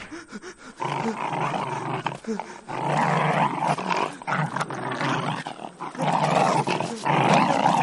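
Dog growling, setting in about a second in and running on with a couple of short breaks.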